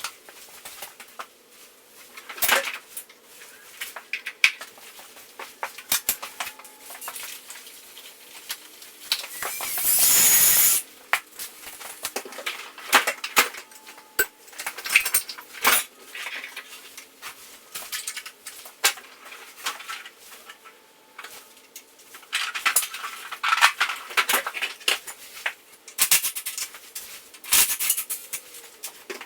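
Hand tools and metal parts clinking and knocking at irregular intervals as a small 49cc dirt bike is taken apart, with one loud rushing burst of about a second around ten seconds in.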